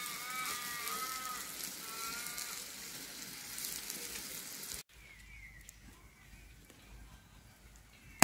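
A tomahawk steak sizzling on a hot flat-top barbecue griddle: a steady hiss, with a few wavering pitched calls over it in the first couple of seconds. The sizzle cuts off suddenly about five seconds in, leaving a much quieter background with a low rumble and a few faint clicks, and a sharp click comes at the very end.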